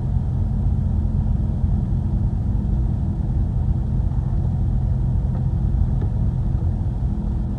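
Vehicle driving slowly, with a steady low engine and road rumble heard from inside the cabin.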